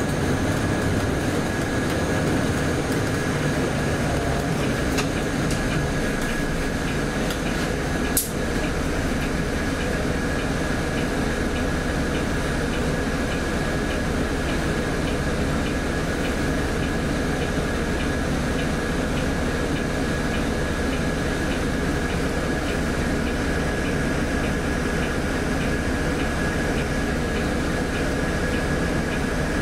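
Steady cabin noise inside a Volvo B8RLE bus: its diesel engine running with a low rumble and a thin, steady high whine, and one sharp click about eight seconds in.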